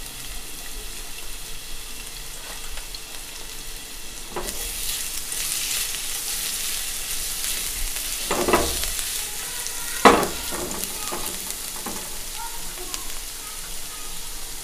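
Chopped garlic sizzling in a little oil in a nonstick frying pan while being stirred with a silicone spatula. The sizzle grows louder about four and a half seconds in, and a few knocks come through, the sharpest about ten seconds in.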